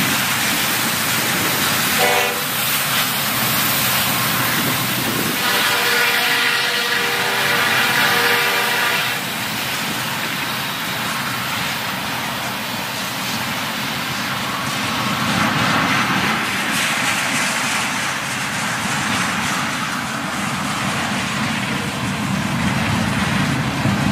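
Freight train of tank cars rolling past: steady noise of steel wheels on the rails. A train horn sounds briefly about two seconds in and again for about four seconds from about five seconds in.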